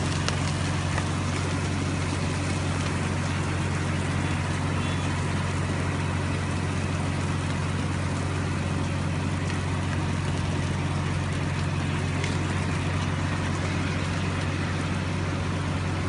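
Steady heavy rain falling on wet concrete, an even hiss with a steady low hum underneath.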